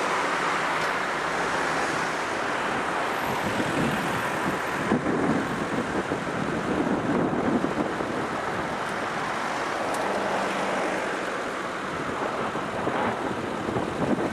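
Steady rushing noise of wind buffeting the microphone, mixed with road traffic, with gustier surges about five seconds in.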